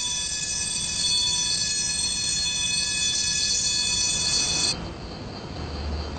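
Ship's bridge alarm sounding a steady, high-pitched electronic tone that cuts off suddenly near the end: the alarm for the steering failure that is reported right after.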